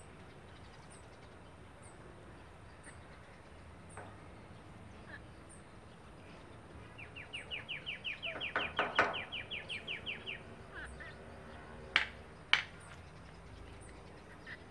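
A bird calls a fast, even trill of about twenty short high chirps lasting some three seconds, with a louder call in the middle of it. Two sharp clicks about half a second apart follow a little later.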